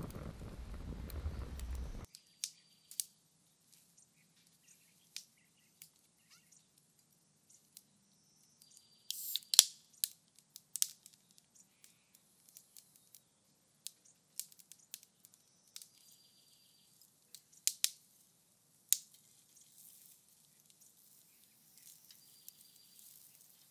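Split firewood crackling as it burns, with scattered sharp snaps and pops and a louder cluster about nine to ten seconds in. Now and then a bird gives a short chirp. For the first two seconds, wind rumbles on the microphone.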